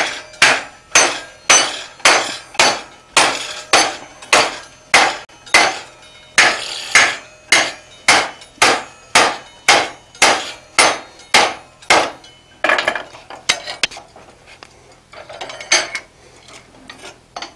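Hand hammer striking a red-hot quarter-inch flat steel bar clamped in a bench vise, bending its ears down over the jaws to form a saddle cutting plate. Steady blows, about two a second, run for some twelve seconds, then give way to a few scattered, lighter metal clanks.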